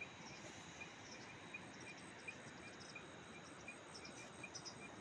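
Faint outdoor ambience: an even hiss with short, high insect chirps repeating about two to three times a second.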